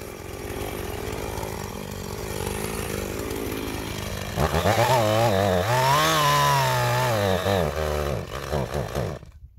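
Two-stroke gas chainsaw running at low speed, then revved up, its pitch rising and then sagging and wavering before the engine cuts out suddenly about nine seconds in: the saw has run out of fuel.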